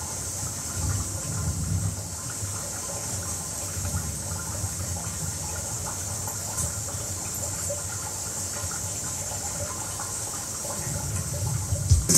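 A steady, even rushing hiss like rain or running water, over a low rumble and faint held tones. Right at the end a loud drum hit brings the full band back in.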